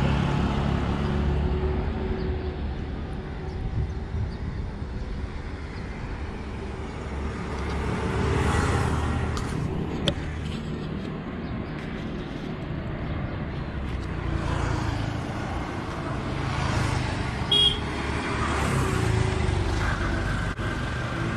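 Road traffic: motor vehicle engines running steadily, swelling as vehicles pass, with a brief high toot about 17 seconds in.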